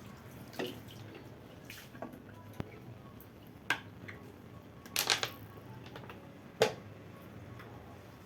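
Scattered light clinks and knocks of hard kitchen items being handled while cleaning, with a short cluster about five seconds in and a sharp knock soon after, over faint dripping water.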